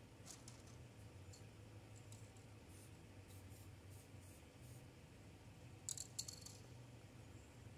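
Near silence with faint clicks from aerosol spray paint cans being handled and set among each other, and a short cluster of sharper clicks about six seconds in, the loudest moment.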